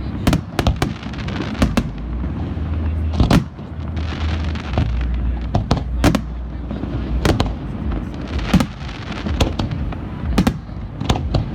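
Aerial fireworks exploding: a string of sharp bangs and cracks at irregular intervals, sometimes several within a second, over a steady low rumble.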